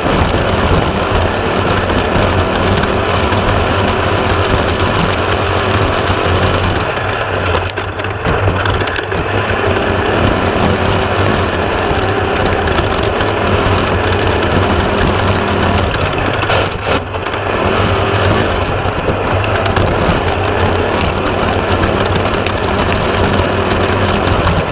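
Class 1/2-1600 off-road race buggy's air-cooled 1600 cc VW engine running hard, with a dense steady rush and rattle over a deep steady drone. The sound dips briefly twice, about a third of the way in and again about two thirds through.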